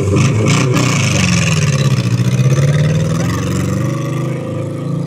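Monster truck engine revving, its pitch rising and falling.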